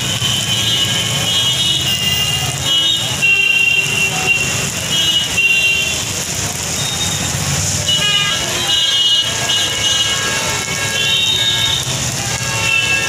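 Busy street traffic on a rain-soaked road: engines and tyres passing, with short horn honks coming again and again.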